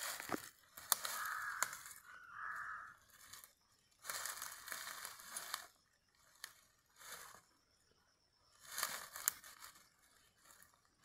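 Rustling and crinkling as a webbing strap with a metal buckle is handled and fastened around rubber boots, with dry leaf litter crunching under it. It comes in about five separate bursts, a few with sharp clicks.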